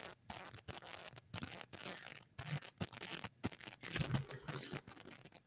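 Faint, irregular clicks and rustles from a laptop being worked at, keys and trackpad tapped while navigating, picked up close by its microphone.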